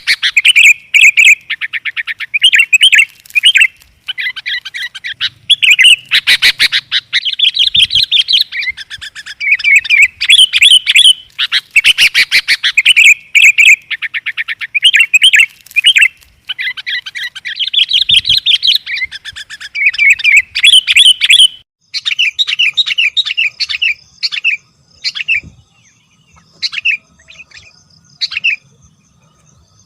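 Sooty-headed bulbul song, loud, in quick chattering phrases of bubbly chirps; about two-thirds of the way through it thins to short separate notes with gaps between them. It is a lure recording of the species' song, used to draw in wild bulbuls.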